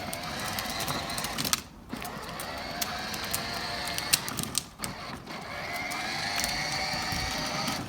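Electric ride-on toy car's motors and gearbox whining steadily as it drives, cutting out briefly about two seconds in and again near the five-second mark.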